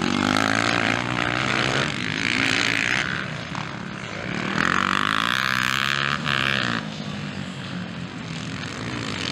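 Several motocross bikes racing, their engines revving hard and backing off as they ride past. There are two long, loud high-revving pulls, one starting about half a second in and one about five seconds in.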